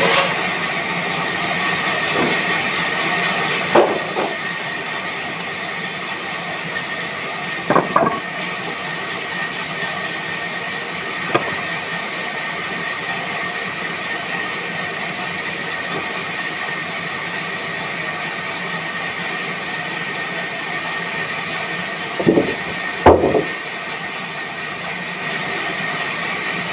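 Sawmill machinery running steadily with a high whine, broken by a few knocks and thuds, the loudest pair near the end.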